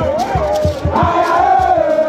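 Crowd of football supporters chanting and singing together over a steady low drumbeat.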